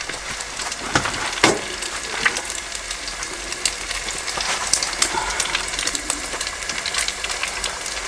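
An egg frying in a cast iron skillet on a two-burner camp stove: a steady sizzle with small crackles and pops throughout. There is one sharper click about a second and a half in.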